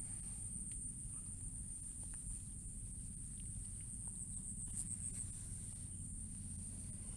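Insects droning steadily at a high pitch, with a low rumble underneath and a few faint light ticks.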